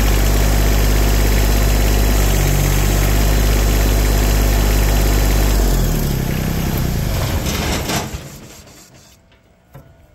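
An LS subcompact tractor's engine runs steadily, driving the hydraulic pump while its pressure is read on a gauge at the loader quick-connect. Around six seconds in the engine note changes, and about eight seconds in the engine is shut off and dies away.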